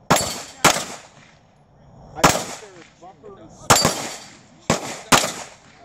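Six pistol shots fired in a timed run: a quick pair, two single shots about a second and a half apart, then another quick pair. Each shot is a sharp crack with a short echo trailing after it.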